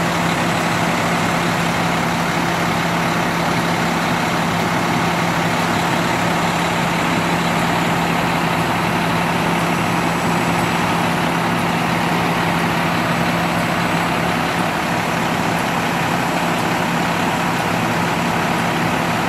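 Fire truck's diesel engine idling steadily, a constant low hum under an even hiss.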